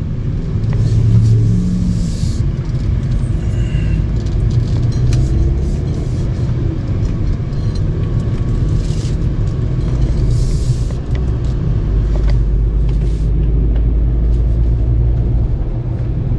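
Car driving along a road: a steady low rumble of engine and tyres, with a brief hiss now and then.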